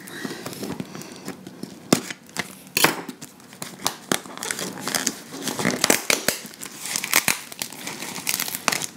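Packing tape on a cardboard parcel being slit with a knife and then pulled and torn off by hand: ripping, crinkling tape and cardboard with many sharp crackles.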